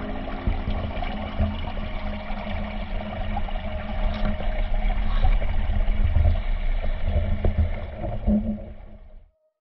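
Pond water sloshing and gurgling around a GoPro Hero 7 Black held at the surface: a steady, low, rumbling wash that fades out near the end.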